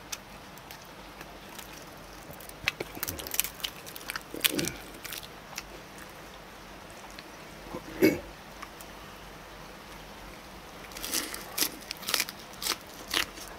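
Crisp crunching and chewing of a raw napa cabbage leaf wrap, in two clusters of short crackly bites with a quieter stretch between.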